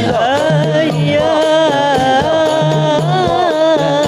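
Sholawat (Islamic devotional) music: a gliding, ornamented melody line over steady percussion and a sustained low tone.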